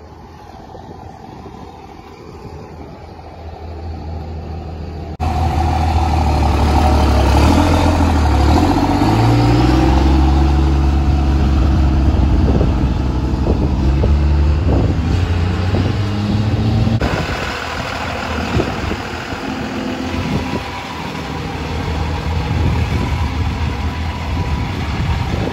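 Truck engine running. It is low at first, then loud from about five seconds in, revving up and down with the pitch rising and falling, and settling to steadier running near the end.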